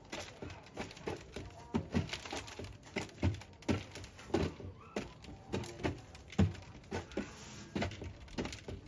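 Ostriches pecking at their feed: an irregular run of sharp taps and knocks, about two to three a second.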